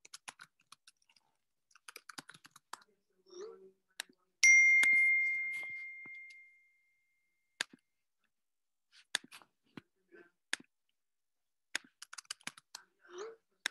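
Scattered clicks of a computer keyboard and mouse, with a single bright ding about four and a half seconds in that rings out and fades over about two seconds.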